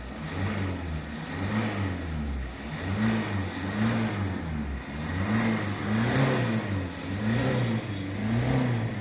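Freshly overhauled Toyota Etios engine being revved with repeated throttle blips, its pitch rising and falling about once a second. It revs cleanly, and the mechanic notes no vibration under throttle.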